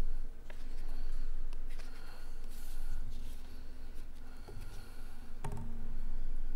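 Papers being shuffled and handled on a wooden lectern close to its microphone, a run of rustles and light knocks over a steady low rumble.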